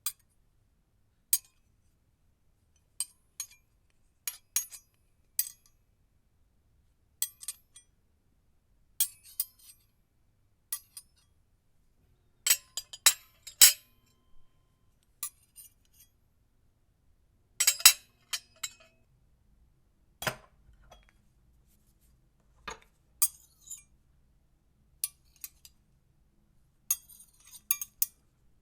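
Metal silverware clinking and scraping against a ceramic plate in scattered taps, some single and some in quick clusters, the loudest around the middle of the stretch.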